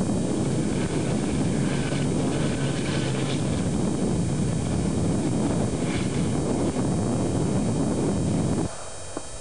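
Tracked armoured vehicle driving, its engine and tracks making a steady heavy rumble heard from on board, with wind on the microphone. The sound cuts off abruptly near the end.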